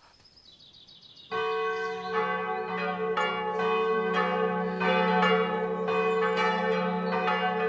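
Bells pealing. A fast run of ringing strokes, about two to three a second, over a steady hum, starts suddenly about a second in.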